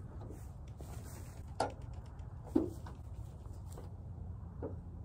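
Two sharp knocks about a second apart, then a fainter one near the end: the steel side gate and latches of a Subaru Sambar truck bed being handled.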